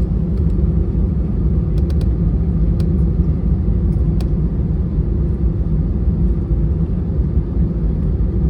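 Airbus A320 cabin noise after landing: a steady low rumble of the engines at idle and the airframe rolling on the ground, with a faint hum and a few light ticks.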